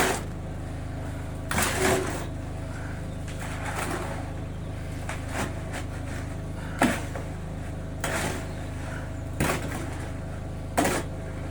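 A machine motor runs with a steady drone, under a string of irregular knocks and scrapes from hand work on the building site, about half a dozen.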